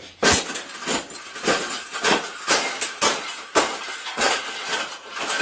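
Repeated sharp metallic knocks and clanks, about two a second, with rattling between them, as a wire cage is worked and bent into a fold.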